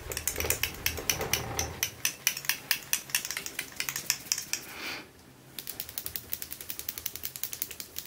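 Glass bottle of old nail polish shaken hard, its mixing ball clicking rapidly against the glass at about eight strokes a second, with a brief pause about five seconds in. This is restorer being worked into polish that had separated.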